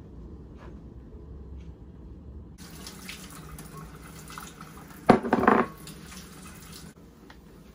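Kitchen tap water running for about four seconds, starting about two and a half seconds in and shutting off near the end, with a loud half-second burst about five seconds in.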